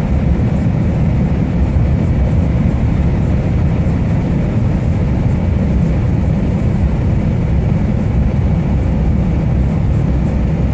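Steady low drone of engine and road noise inside the cab of a Scania R440 truck cruising along the highway.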